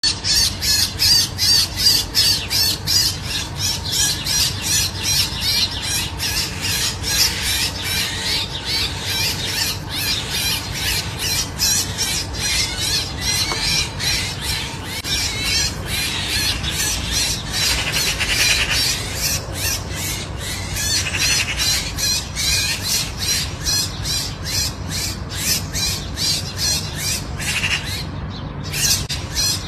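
A flock of birds calling without pause: rapid, overlapping high-pitched calls, several a second.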